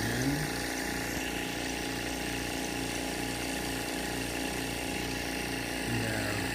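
Thomas Industries electric air compressor of a pond aeration system running with a steady hum and a regular low pulse, pumping air through the hose to diffusers in the pond.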